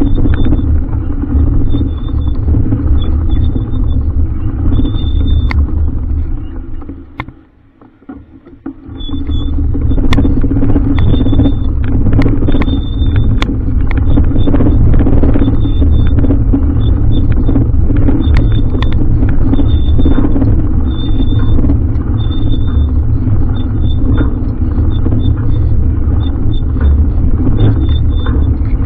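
Steady loud rumble of wind and road noise while riding a bike. It drops away almost completely about seven seconds in, then returns about two seconds later.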